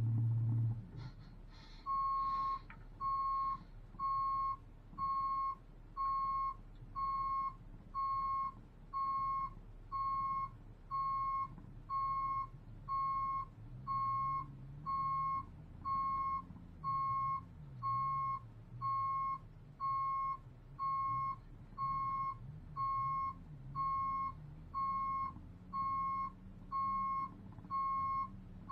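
Electronic warning beeper sounding a steady single-pitched beep, a little under once a second, starting about two seconds in, over a low rumble.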